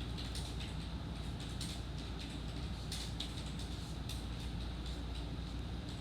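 Marker strokes scratching on paper, short and irregular, as an area is coloured in. A steady low hum runs underneath.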